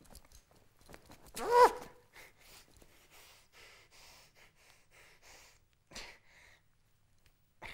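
A man's short high-pitched vocal squeal, rising then falling, about a second and a half in, followed by a run of short breathy puffs about two a second. A click comes near the end.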